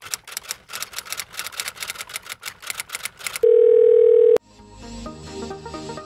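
Intro sound effects and music: a run of rapid ticks, about six a second, then a loud steady beep held for about a second, then light electronic music with marimba-like notes.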